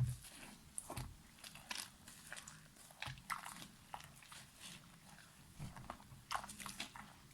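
Dry soap crunching in irregular crisp bursts, with low knocks at the very start and about a second in.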